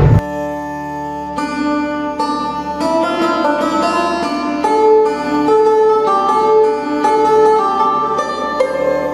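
Background music led by a plucked string instrument playing a melody of held notes. It enters just as a louder, dense noisy passage cuts off at the very start.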